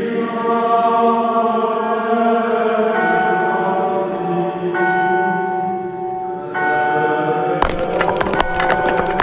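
Anime soundtrack music: sustained choir-like chords with bell tones, the chord changing every couple of seconds. About three-quarters of the way through, a rapid clatter, like marching steps or percussion, joins the music.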